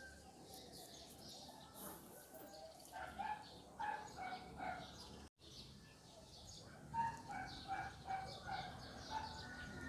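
Faint runs of short, repeated animal calls, a few a second: one run about three seconds in and another about seven seconds in.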